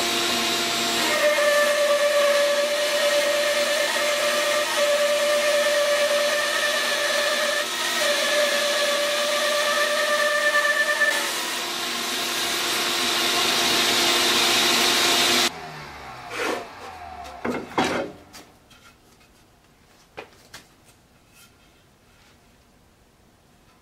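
Craftsman 14-inch bandsaw running and resawing a cedar log, a steady whine mixed with the blade's cutting noise for about fifteen seconds. The sound then cuts off suddenly, a falling tone follows as the saw winds down, and a few light knocks of wood being handled come near the end.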